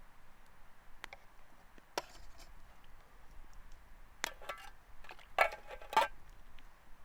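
Scattered light clicks and knocks, with a few louder, slightly ringing clinks between about four and six seconds in, like small utensils or cookware being handled.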